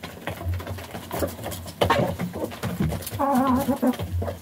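Chickens pecking feed from a wooden trough: a rapid, irregular tapping of beaks. About three seconds in, one hen gives a wavering call of under a second.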